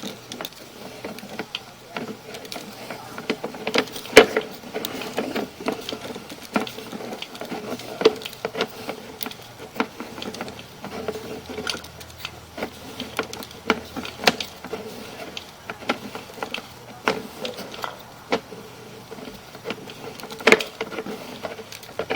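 Sewer inspection camera's push cable being pulled back by hand toward the cleanout, with irregular clicks and knocks over a faint steady hum.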